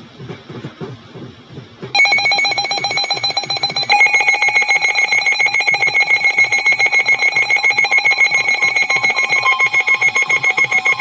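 Emergency alert tone between weather warnings: a loud, harsh electronic alarm that starts suddenly about two seconds in, pulsing rapidly with many overtones, and shifts pitch about two seconds later.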